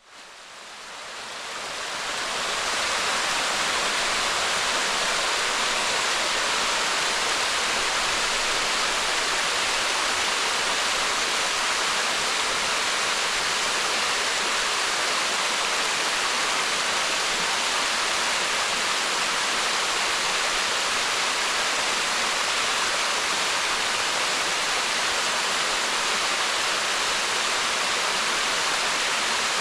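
Waterfall rushing: a steady, even wash of falling water that fades in over the first two or three seconds and then holds level.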